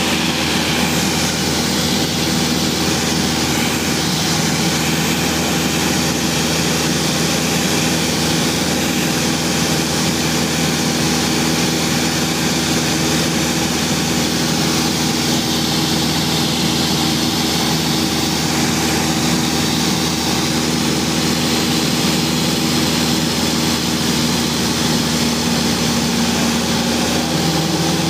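Light propeller aircraft's engine and propeller droning steadily, heard from inside the cabin in cruise, with a constant rush of air over the airframe.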